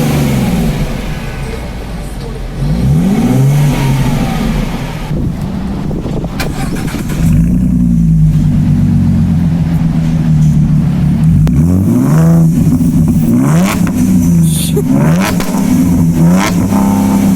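Exhaust of a 2017 Ford Mustang's 3.7-litre V6 running loud with its mufflers deleted. The revs rise and fall several times, with a steadier stretch in the middle.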